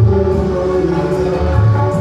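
Music played loud through a PA sound system, likely its sound-check song. It has heavy bass notes, a couple of them swelling near the start and about three-quarters in, under held pitched tones and light percussion.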